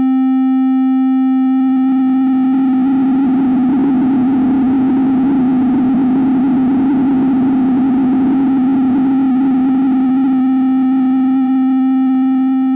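Steady virtual modular synth oscillator tone around middle C, frequency-modulated by noise: a gritty, dirty haze builds around the pitch from about a second in and eases off again near the end.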